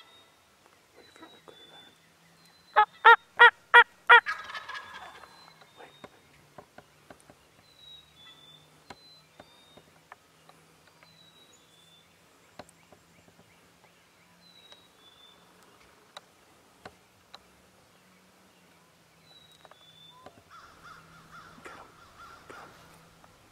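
Wild turkey gobbler gobbling once, a loud rapid rattling call of about five quick pulses about three seconds in. Faint short high chirps from a small bird come and go.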